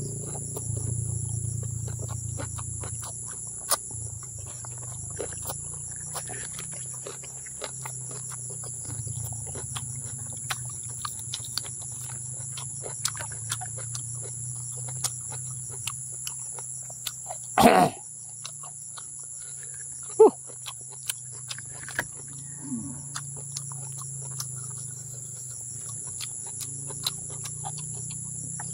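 Close-miked wet chewing and lip-smacking of a man eating rubbery boiled cow skin: many small clicks throughout, with one louder crackling noise a little past halfway. A steady high insect drone, like crickets, and a low hum run underneath.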